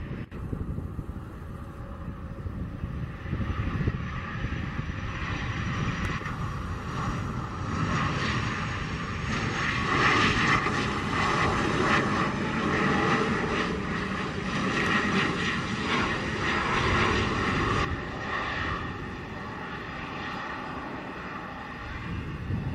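Rear-mounted turbofan engines of a Bombardier Challenger business jet running on the runway: a jet roar with a high whine, building to its loudest through the middle and easing off near the end.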